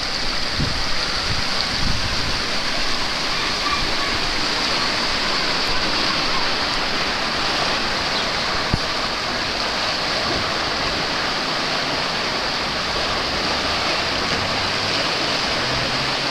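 Steady rush of water running down an open waterslide and churning into its runout channel, with a single brief knock about nine seconds in.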